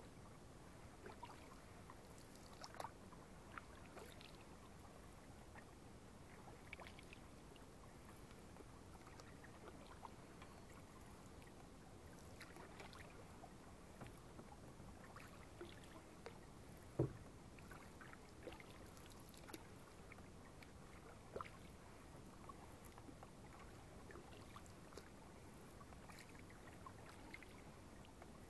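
Quiet canoe paddling on calm water: faint paddle strokes with scattered small drips and splashes, and one louder knock a little past halfway.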